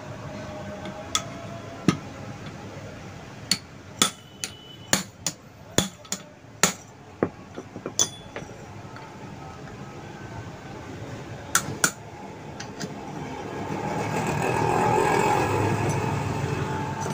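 Sharp metal knocks, about fifteen of them, irregular and bunched in the first half: a hammer striking a rod set against the damper bolt in the bottom of a Yamaha R15 front fork tube, to loosen the bolt. Near the end a passing vehicle swells and fades.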